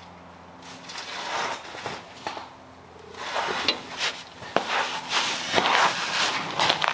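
Scraping, rubbing and a few sharp knocks of things being handled, busier in the second half, over a steady low hum.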